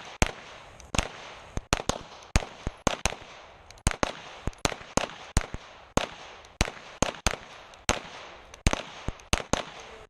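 Pistols firing in a rapid, uneven string of sharp shots, about three a second, with shots often coming in quick pairs and overlapping from several shooters on the line.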